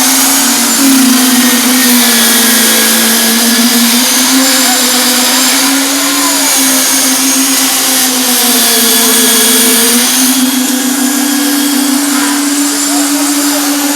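A construction machine's motor running steadily, with a loud droning hum that wavers slightly in pitch over a rushing mechanical noise.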